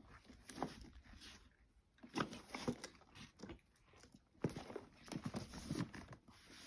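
Faint, irregular knocks and clicks, loudest about two seconds in and again from about four and a half seconds on.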